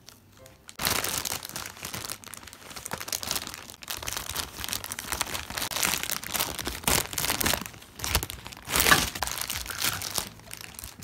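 Plastic packaging crinkling and rustling as a figure's separately wrapped parts are unwrapped by hand, with a louder crackle near the end.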